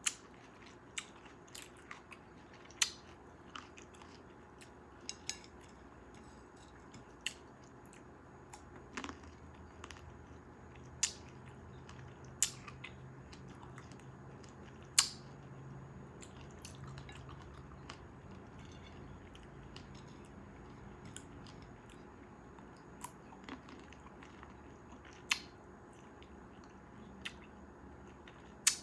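Close-miked chewing and biting of fresh cherries: sharp wet clicks and small snaps at irregular intervals, roughly one every second or two, between quieter mouth sounds.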